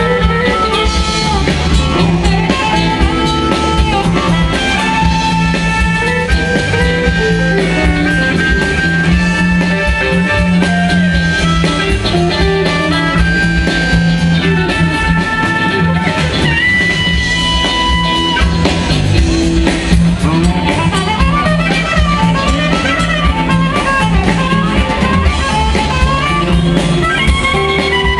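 Live blues band playing an instrumental stretch: electric guitars holding and bending lead notes over bass and drum kit.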